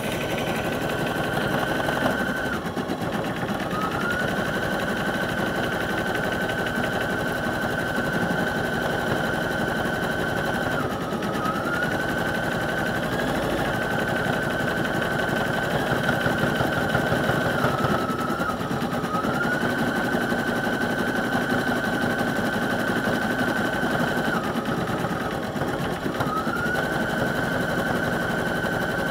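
Computerised embroidery machine stitching out a design, its needle running in a fast, steady rhythm. A high motor whine runs over it, dropping in pitch and climbing back up about four times.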